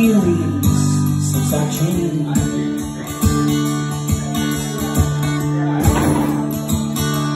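Acoustic guitar strummed in a steady rhythm, playing chords in a song.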